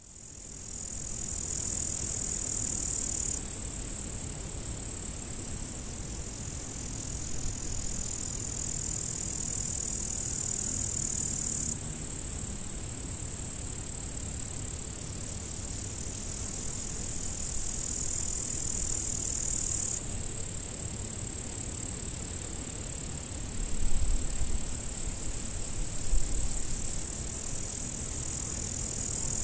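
Field crickets chirping in a dense, steady high-pitched chorus, its loudness shifting abruptly several times, over a faint low rumble.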